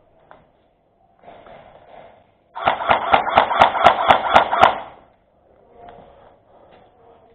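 Airsoft gun firing one sustained rapid-fire burst of about two seconds, starting near the middle: a fast run of sharp cracks.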